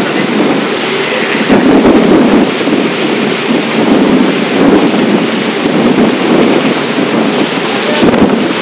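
Storm wind gusting hard against the microphone, with heavy rain falling: a loud, unbroken rush that surges and eases in gusts.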